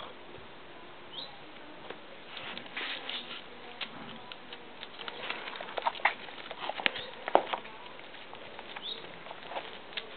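Light, irregular tapping and scratching, busiest in the middle few seconds, with a brief high chirp about a second in and another near the end.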